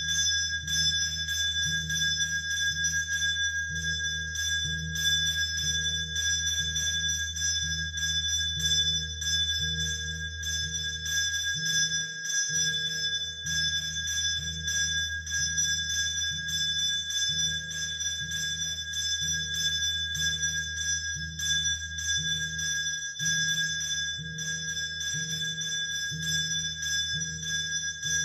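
Temple bells ringing without pause during the mangala arati, a held metallic ringing over a regular low beat of about two strokes a second.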